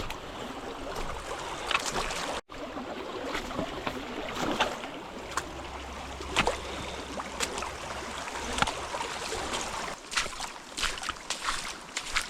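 Footsteps crunching and crackling irregularly through forest-floor litter over a steady rushing background. The sound cuts out for an instant about two and a half seconds in.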